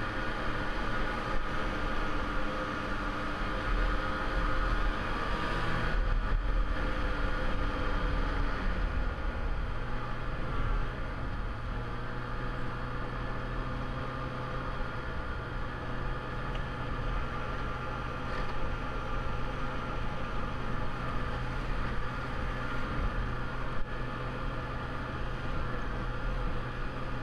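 Snowmobile engine running steadily while the sled rides along a snow trail. About nine seconds in its pitch slides down and it settles lower and a little quieter for the rest.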